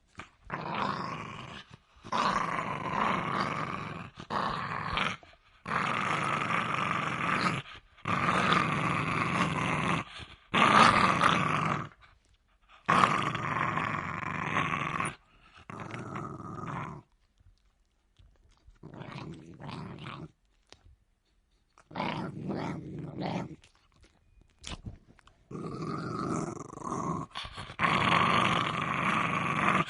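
Jack Russell terrier growling, a string of rough growls, each one to two and a half seconds long with short breaks between them. The growls drop quieter about halfway through and grow loud again near the end.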